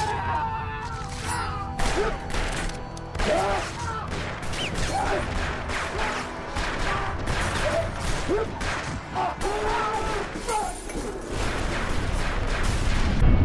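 Film action soundtrack: repeated gunshots and impacts with struggling voices over music, ending on a heavy low hit.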